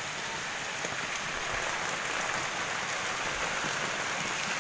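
Steady hiss of water from shallow floodwater running across a yard.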